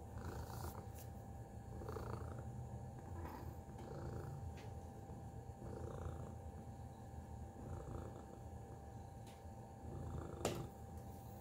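Tabby cat purring steadily while its head is stroked, the purr swelling with each breath about every two seconds. A single sharp click about ten seconds in.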